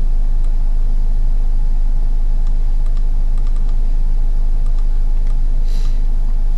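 A loud steady low hum runs throughout, with faint computer mouse clicks scattered over it and a brief hiss near the end.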